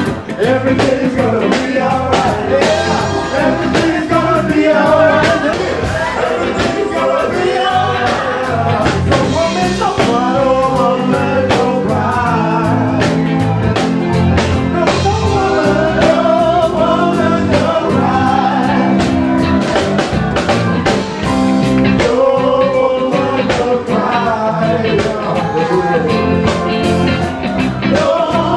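Live band playing: a man and a woman singing into microphones over electric guitar, keyboard and a drum kit keeping a steady beat.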